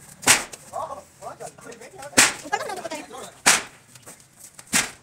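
Four sharp, whip-like cracks come about every second and a half. They are most likely the steel frame of a lattice concrete hoist knocking as men heave and lever it along with a pipe. Men's voices are heard faintly between the cracks.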